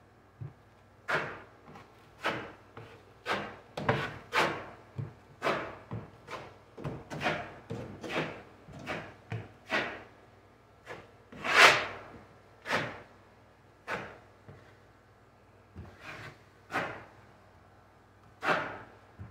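Drywall taping knife scraping across a wall, spreading and smoothing joint compound over drywall tape in a string of short strokes, roughly one a second. One stroke a little past halfway is louder than the rest.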